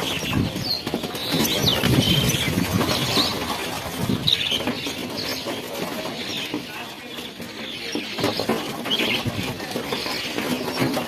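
A flock of small birds giving short, scattered chirps, over a low fluttering rustle of wings.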